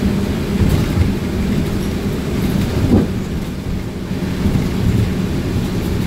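Steady low rumble of a city bus on the move, heard from inside the cabin, with tyres on a wet road and rain on the windows. A steady engine hum fades about halfway through, and there is a brief bump about three seconds in.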